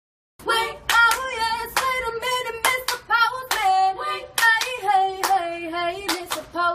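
Young women singing a cappella, with sharp hand claps falling every second or so through the song. The clip starts about half a second in and ends abruptly.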